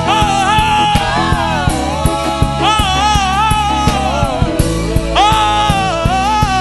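Live gospel worship music: a voice singing long held, wavering notes over a band with a steady drum beat and bass.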